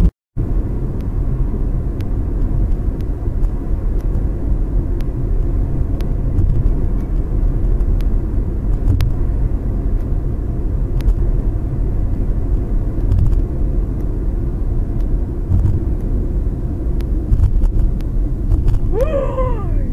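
Steady low road and engine rumble inside a moving car, as picked up by a dashcam. A woman's voice is heard briefly near the end.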